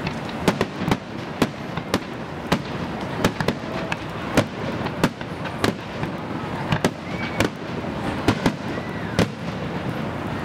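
Aerial firework shells bursting overhead in quick, irregular succession: many sharp bangs, often one or two a second, over a steady rumble and crackle.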